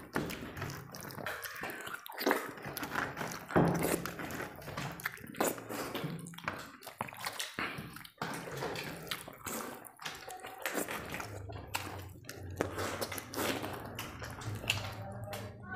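Close-miked eating sounds: wet squelching and smacking as hands mash rice into chicken curry and mouths chew, in quick irregular bursts.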